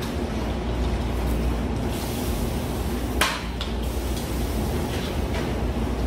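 Water poured from a metal cup into a hot pan of seafood and flour, sizzling, then a utensil stirring it with a sharp clink against the pan about three seconds in, over a steady low hum.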